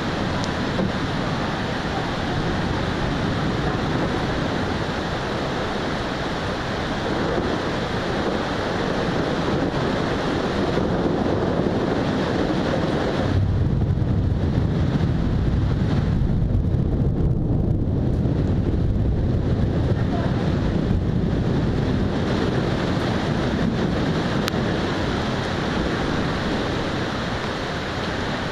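Thunderstorm ambience: a steady, loud rush of wind and rain. From about 13 to 21 seconds in, a deeper low rumble swells up and then fades.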